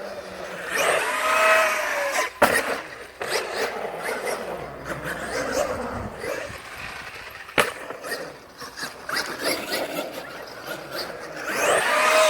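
A large radio-controlled car driving over rough ground, its motor whining up and then back down near the start and again near the end, with sharp knocks about 2.5 and 7.5 seconds in.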